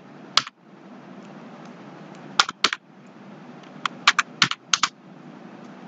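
Computer keyboard typing a word, about nine separate key clicks in short irregular clusters over a faint steady hiss.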